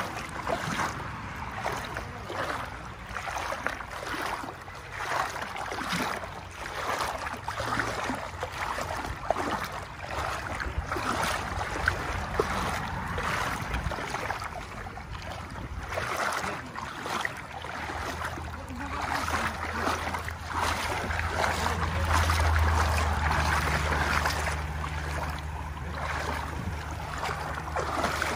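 Shallow rocky creek running, with irregular splashing of legs wading through the water. A low steady hum comes in about two-thirds of the way through and is loudest near the end.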